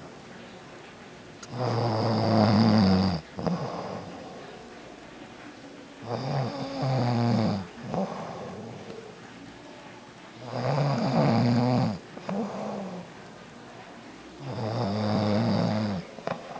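A man snoring in his sleep: four loud, long snores, one about every four seconds, each trailing off into a softer breath.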